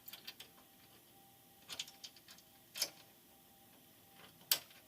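A few faint, sharp metallic clicks of small hardware (washers, nut and carriage bolt) being handled and fitted, spaced out with quiet gaps, the loudest near the end.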